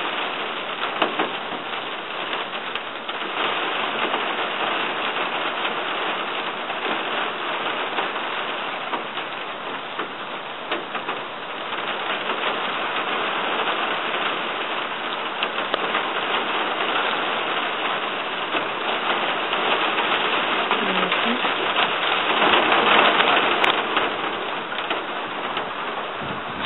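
Steady rain falling, an even hiss dotted with small ticks of drops, swelling a little louder for a couple of seconds near the end.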